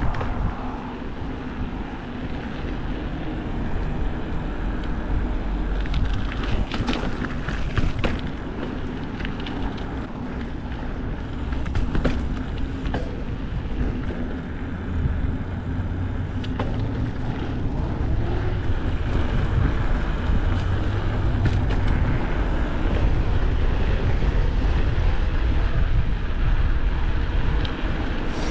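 Mountain bike ridden along a trail: a steady rush of wind on the microphone and tyre rumble, with scattered clicks and rattles from the bike over rough ground. It grows louder in the second half as the pace picks up.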